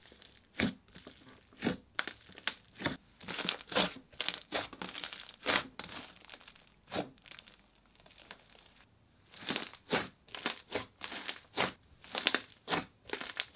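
Pink butter slime, a clay-based butter layer, being poked, pressed and stretched by hand: a dense run of crackling, popping clicks from the textured slime, with a short lull a little past the middle.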